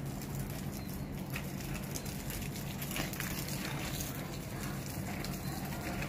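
Water from a garden hose spraying and pattering onto leafy potted plants, a steady hiss with a low hum underneath.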